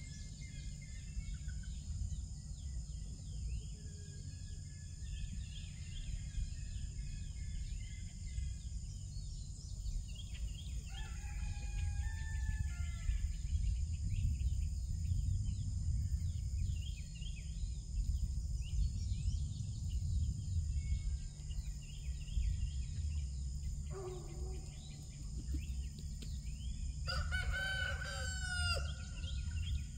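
Rooster crowing: one loud crow of about two seconds near the end, with a fainter call about a third of the way in. Small birds chirp throughout over a steady high-pitched hum and a low rumble.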